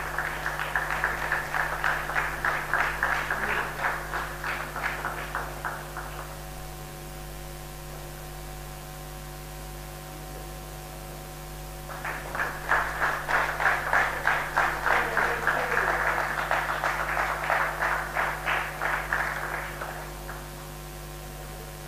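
A small audience clapping for about six seconds, dying away to a steady electrical hum, then clapping again for about eight seconds.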